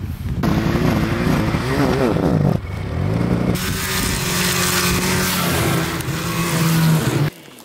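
Snowmobile engine running hard and revving, its pitch wavering up and down and then holding steady. The sound changes abruptly several times.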